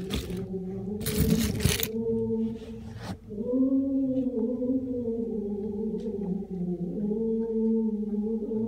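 Several voices holding long, drawn-out notes together, with slow slides in pitch. A rush of noise comes about a second in, and a single sharp crack about three seconds in.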